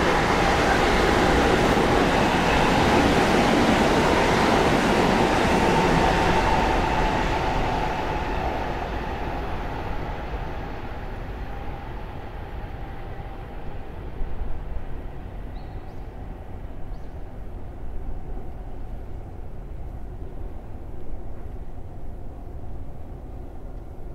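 A train passing close by: loud rumbling running noise for the first several seconds, then fading away steadily as it recedes.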